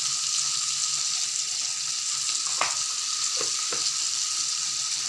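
Chopped onion, tomato, sweet corn and peanuts sizzling in hot oil in a frying pan, a steady hiss with a few sharp ticks around the middle.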